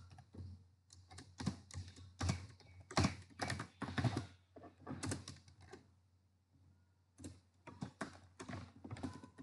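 Computer keyboard typing: quick, irregular runs of keystrokes, with a pause of about a second past the middle before the typing resumes.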